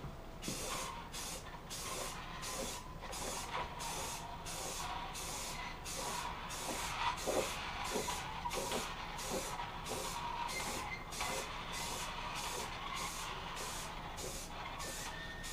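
Aerosol spray can hissing in a quick run of short bursts as a second coat of primer filler goes onto a motorcycle headlamp shell.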